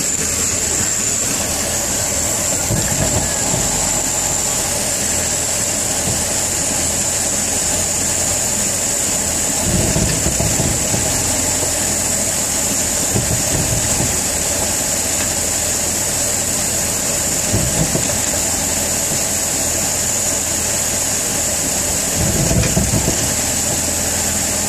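BMW E46 engine running with a gear engaged and the rear wheels spinning off the ground, with about five short low clunks from the rear driveline, spaced a few seconds apart. The clunking comes from the propshaft or differential and stops the rear wheels turning; the owner does not know the cause.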